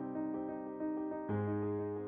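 Background piano music: a gentle melody of short repeated notes over held bass notes, with a new bass chord struck about one and a half seconds in.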